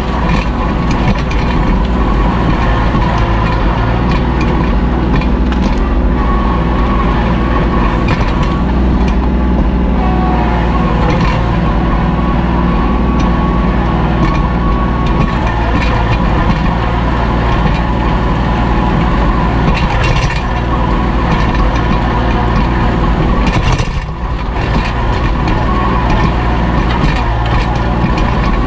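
Kubota L2501 compact tractor's three-cylinder diesel engine running steadily under load while pulling a disc harrow through sod and roots, with occasional sharp knocks from the discs.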